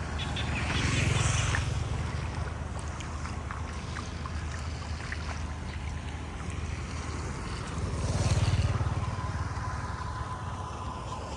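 Motorbike engine running on a flooded road, a steady low hum that swells loudest as the bike passes close about eight seconds in; a similar swell of rushing noise comes about a second in.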